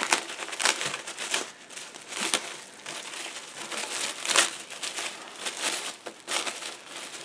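Rustling, crinkling handling noise with many small clicks, as stacks of trading cards are picked up and flipped through.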